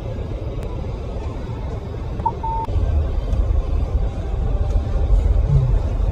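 In-cabin rumble of a 2023 Ford Edge L SUV rolling slowly over a rough dirt track, growing a little louder in the second half. A short high beep comes about two seconds in.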